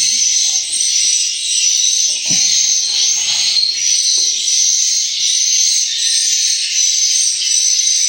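Swiftlet lure calls played from the tweeter speakers of a swiftlet house: a loud, steady wash of high chirping.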